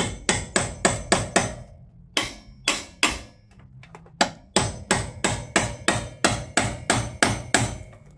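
Hammer striking the nailed-on steel perimeter channel at a timber ceiling plate, knocking it loose to open a gap. The blows come in quick runs of about four a second, with two short pauses.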